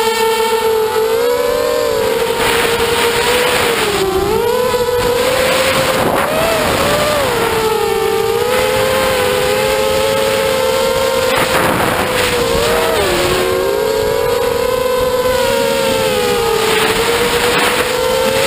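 Multirotor drone's electric motors and propellers whining steadily, the pitch dipping and rising several times as the throttle changes. Gusts of wind noise on the onboard microphone come and go.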